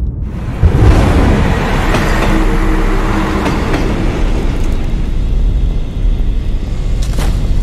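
Spooky Halloween-style intro soundtrack: a loud, dense rumble that swells about half a second in, with a few held tones in the middle and a couple of sharp hits near the end.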